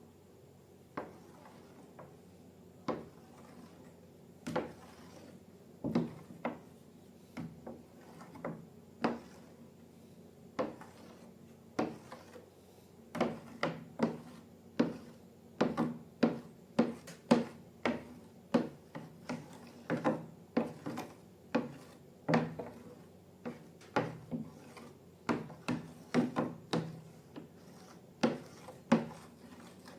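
A long run of short, sharp clicks and knocks, irregular and sparse at first, then coming much faster from about halfway through.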